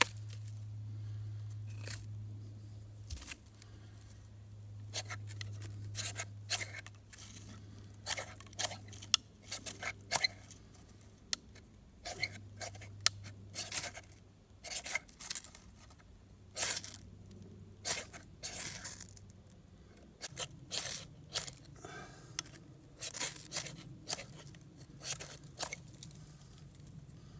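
Spine of a Mora knife scraped down a ferrocerium fire steel, dozens of quick sharp strokes in irregular runs with short pauses. The sparks are not catching the shavings; the striker blames a knife spine he couldn't get a sharp edge on.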